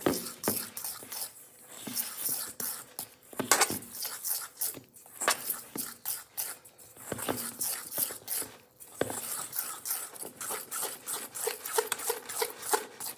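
Metal fork scraping and clinking against a stainless steel mixing bowl, stirring flour into a thick cake batter in quick, irregular strokes.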